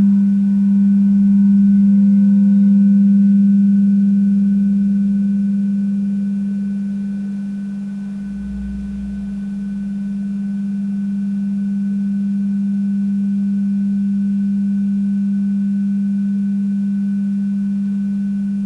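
Frosted crystal singing bowl ringing a steady, pure, low hum with faint overtones above it. It is rubbed around its rim with a rubber-ball mallet, then left to sing on. The tone fades a little about eight seconds in, then swells back up.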